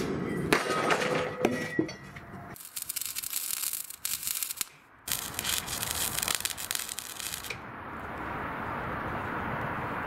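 Steel pipe clanking and ringing as it is handled against the hull, then a MIG welder's arc crackling and sizzling in two runs of a couple of seconds each as the pipe rail is tack-welded, followed by a steady rushing noise.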